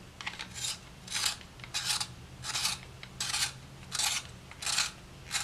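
Holbein T'Gaal adjustable hand pencil sharpener shaving a wooden pencil, its blade scraping wood with each turn: about eight rasping strokes, evenly spaced roughly 0.7 seconds apart.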